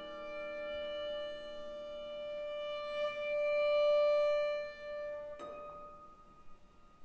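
Contemporary chamber ensemble with solo violin playing long held notes, one of them swelling about four seconds in. About five and a half seconds in, a sharp accent leaves a single high note ringing and fading away.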